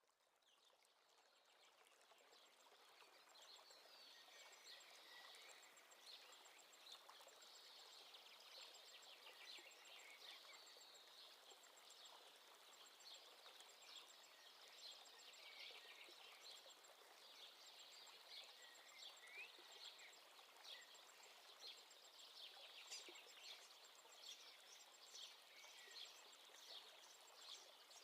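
Faint chorus of many short bird chirps over a steady hiss, fading in over the first few seconds.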